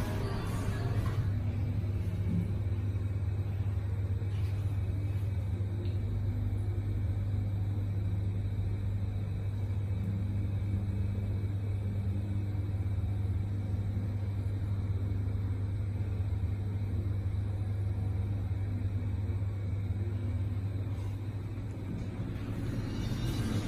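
Hitachi passenger elevator car travelling up one floor, heard from inside the car: a steady low hum.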